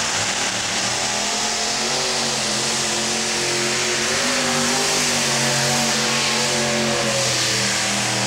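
Multi-engine modified pulling tractor at full throttle, dragging the weight sled down the track. A loud, steady engine howl whose pitch wavers slightly.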